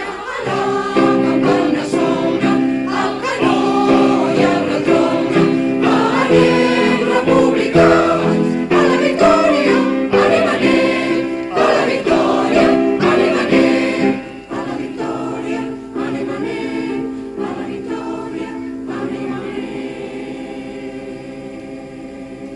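Choral music, voices singing held chords with accompaniment. It drops in level about two-thirds of the way through and tapers off toward the end.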